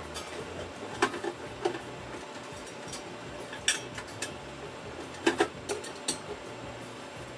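Irregular metallic clinks and knocks, some in quick pairs, as hands handle the fittings and hose on a steel beer keg inside a steel-drum draft-beer cooler.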